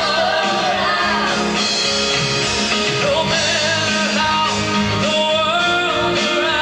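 A song with a singing voice over a rock-style band accompaniment of bass and guitar, played at a steady level.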